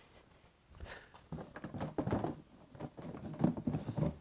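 Irregular hollow knocks and clatter of a plastic Milwaukee Packout crate being picked up and handled, with a few footsteps on concrete among them.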